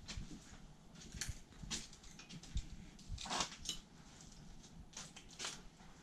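Faint, scattered scuffs and rustles of people moving about and handling things in a small room, with a few soft footfalls and a louder brief rustle about halfway through.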